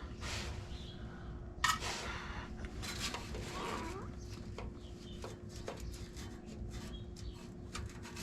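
Hand tools being handled on the car: a few scattered clinks and scrapes of metal over a steady low hum.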